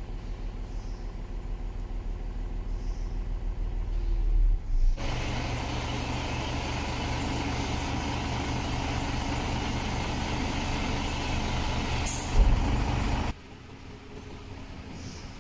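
Diesel engine of an Isuzu Giga 6x4 dump truck running while its hydraulic hoist tips the bed. The engine runs low at first, then from about five seconds in it runs louder and steadier under the hoist pump's load. A short hiss and a thump come near the end, then the engine drops back to a quieter idle.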